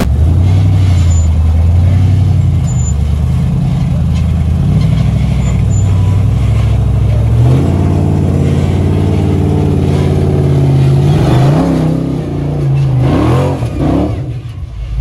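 Rock-crawler buggy's engine revving under load as it climbs a rock ledge, its pitch stepping up and down, then a few quick rising revs near the end as the tires spin and throw up dust.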